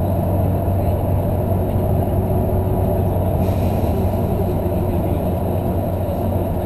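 Engine and road noise heard inside a moving bus: a steady low drone.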